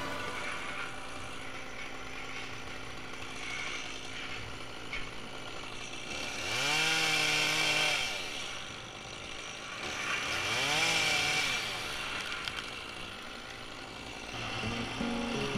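Top-handle chainsaw idling, then revved up twice to full speed for about two seconds each, rising and falling back to idle, as limbs are cut.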